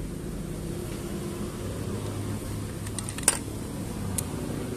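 Pressure washer quick-connect fittings and nozzle tips handled by hand: a quick cluster of sharp clicks about three seconds in and a single click about a second later, over a steady low hum.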